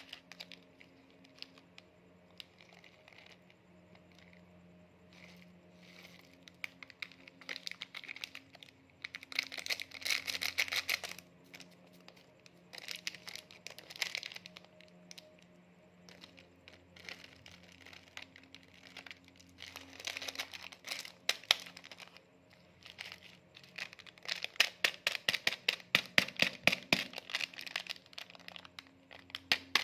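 Plastic snack packaging crinkling and rustling in irregular bursts of dense crackles, over a faint low steady hum.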